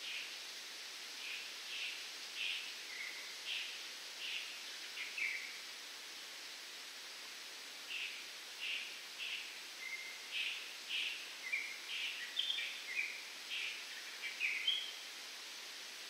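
Wind through coconut palm fronds as a steady hiss, with birds calling in the palms. The calls come as runs of short high chirps, one run in the first five seconds and a busier one from about eight seconds in.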